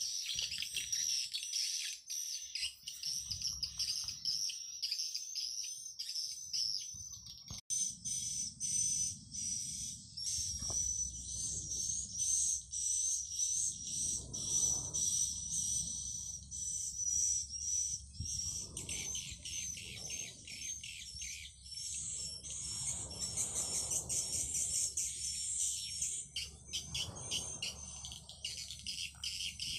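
Swiftlet lure call recording: dense, rapid, high-pitched twittering chirps, unbroken apart from a brief gap about 8 seconds in. This is the 'call' sound that swiftlet farmers broadcast to draw edible-nest swiftlets into a bird house.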